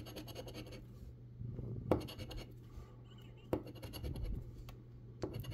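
A large metal coin scratching the coating off a paper lottery scratch ticket in short bursts of strokes, with a few sharp clicks between them.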